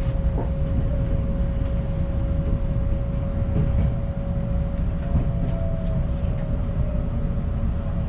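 Taiwan Railways passenger train heard from inside the carriage: a steady low rumble with a single steady whine above it that sags slightly in pitch near the end.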